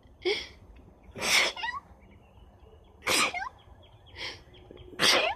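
A woman sneezing three times, about two seconds apart, with short sharp breaths in between. It is the sneezing fit that comes on after she blows her nose.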